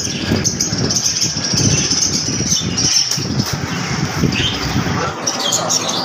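Flock of caged budgerigars chirping and chattering, with many short high chirps overlapping, over a steady low rumble.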